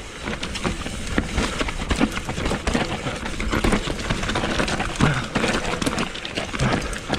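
Mountain bike riding fast down a dry dirt singletrack: tyres rumbling over packed earth and stones, with quick rattles and knocks from the bike as it hits roots and rocks.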